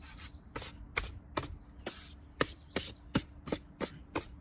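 Trigger spray bottle squirting in quick short hisses, about two or three a second, some with a faint squeak, spraying down a surface to clear sanding dust.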